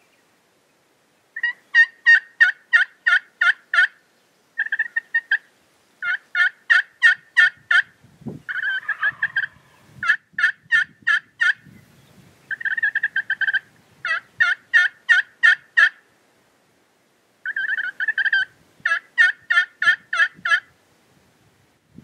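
Turkey yelping: about seven runs of loud, evenly spaced yelps, three or four a second, each run one to three seconds long with short pauses between. About eight seconds in comes a rougher, noisier call with a low thump.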